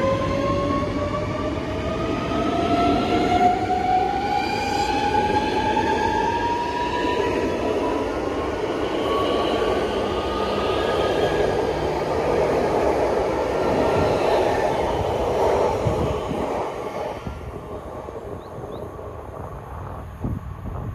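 Øresundståg electric multiple unit accelerating past on the rails: its traction motors give a pair of rising whines over the first eight seconds or so, over the rumble of the wheels on the track. The loud rumble drops away suddenly about seventeen seconds in, leaving fainter train noise.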